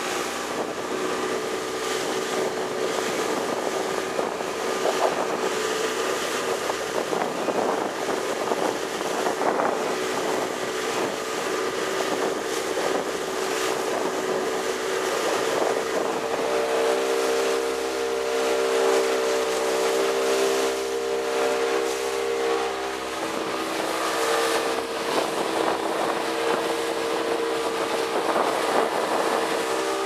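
Outboard motor of an 18 ft alloy long boat running under way at a steady cruising speed, a constant droning note over wind and water rush. The note strengthens a little past halfway through.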